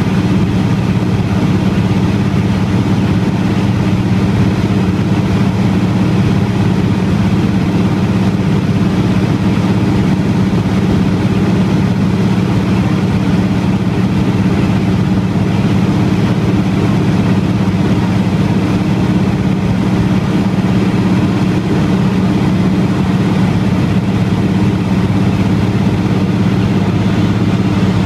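De Havilland Canada DHC-2 Beaver seaplane's engine and propeller droning steadily in cruise flight, a constant low hum with no change in pitch or level.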